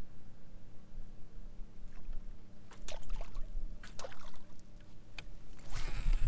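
Water lapping and trickling against a fishing kayak's hull over a low steady rumble. There are a few sharp clicks and knocks about three and four seconds in, and a louder swish near the end as the fishing rod is swung up.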